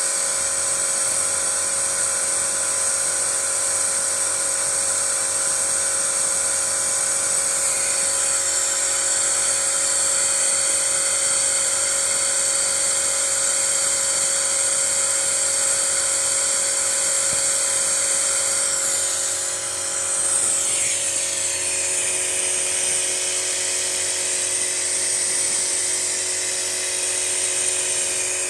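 Petrol car engine running while carbon-cleaning fluid is drawn into its intake through a hose, giving a steady, high-pitched whine and hiss of air being sucked in. About two-thirds of the way through, the whine sweeps down in pitch.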